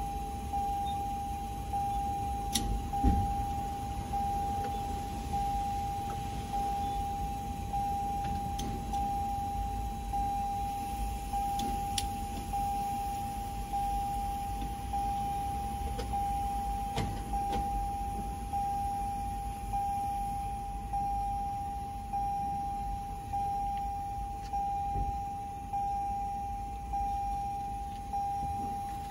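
Windshield wipers sweeping in a regular rhythm, about one stroke every second or so, inside a car driving in the rain over steady road noise. A constant high whine runs underneath, with a few light clicks.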